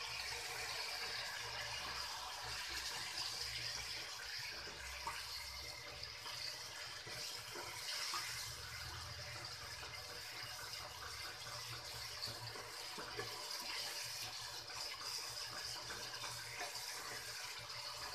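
Tomato-garlic masala gravy sizzling steadily in an oiled kadhai as the spices cook down, stirred with a spatula partway through.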